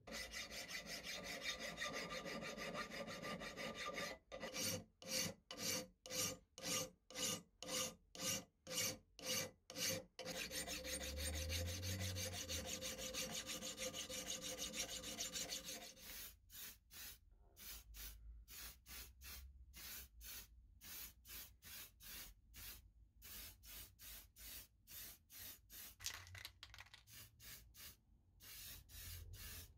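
Hand file scraping along the steel blade of a Morso mitre guillotine: long continuous strokes with a steady ringing from the blade, alternating with runs of separate strokes about two a second, which are quieter in the second half. Near the end comes a short spray-can hiss.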